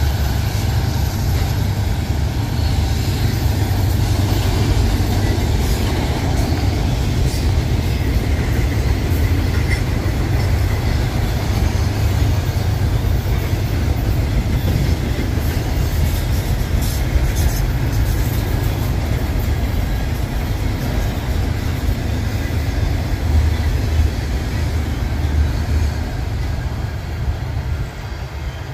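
Mixed freight train cars, including covered hoppers, boxcars and steel coil cars, rolling past at speed. The wheels on the rails make a steady low rumble that eases slightly near the end.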